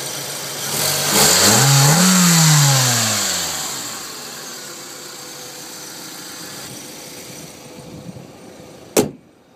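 2007 Hyundai Tiburon GS's 2.0-litre DOHC four-cylinder engine idling, blipped once about a second in, its pitch rising and then falling back to idle over about three seconds. Near the end the hood is slammed shut with one sharp, solid-sounding bang.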